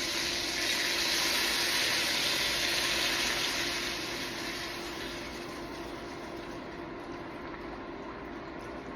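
Beef broth being poured into a hot pot of seared beef shanks: a steady rushing, sizzling pour that fades from about four seconds in to a softer hiss.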